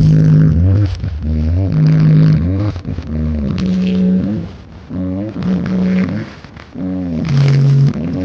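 Large carnival sound system playing very loud, bass-heavy music: a run of held low notes, each sliding into and out of pitch, one every second or two, over a heavy low rumble.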